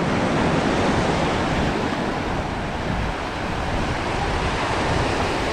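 Ocean surf washing onto a beach, a steady rushing, with wind buffeting the microphone.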